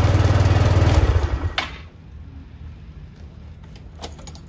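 Yamaha Mio i 125 scooter's fuel-injected single-cylinder engine idling, then dying out about a second and a half in: the engine stalls at idle, the fault being cured by adjusting the idle. After it stops, only a low hum and a few light clicks remain.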